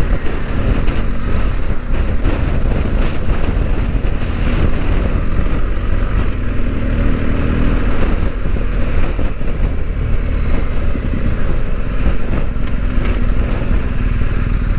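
Motorcycle riding along at road speed, its engine running steadily under a heavy rumble of wind on the microphone.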